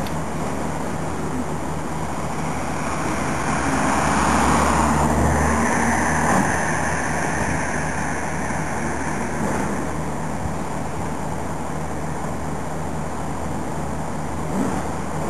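Diesel shunting locomotive's engine running steadily as it moves slowly along the depot track. The sound swells from about three seconds in and eases back after about seven seconds.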